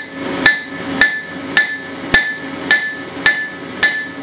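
Hand hammer striking a red-hot steel bar on an anvil, about eight even blows at roughly two a second, each leaving a short ring from the anvil. The smith is drawing the steel out to a fine taper.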